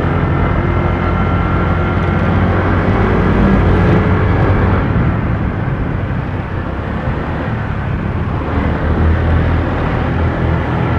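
Honda Click automatic scooter being ridden, its engine running with a steady low hum over a haze of road and wind noise.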